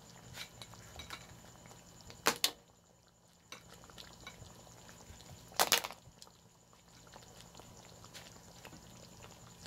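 Cooking utensil clattering against a pot twice, about two seconds in and again near the middle, over faint bubbling of a thick sauce simmering.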